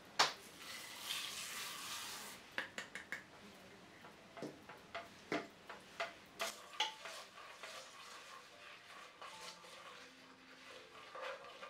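Sesame seeds going into a cast-iron skillet of melted butter and honey, with a soft hiss over the first couple of seconds. A run of sharp clicks and light knocks of kitchenware against the pan follows. Near the end a wooden spoon stirs the seeds.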